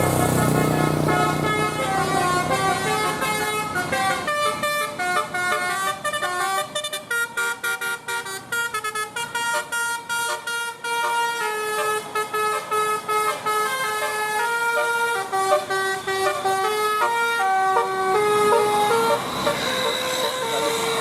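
Bus telolet horn of the Basuri type playing a melody of short, stepping musical notes, fast and choppy through the middle, with a low rumble underneath at the start.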